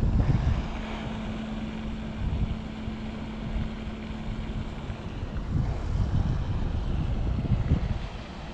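Wind buffeting the microphone in an uneven low rumble, with a steady low hum underneath that fades out about five seconds in.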